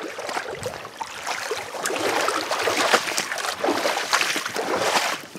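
Rustling, crackling and scraping, with many sharp clicks, of a small boat and gear being handled on a grassy shore. It swells after the first second or so and stays busy through the middle.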